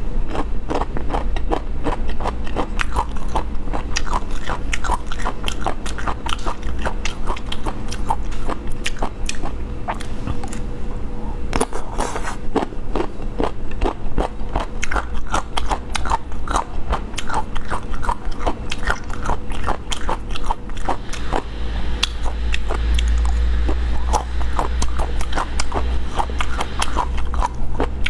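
Close-miked chewing and biting of slippery, chili-dressed slices: a rapid, unbroken run of sharp wet clicks and smacks from the mouth.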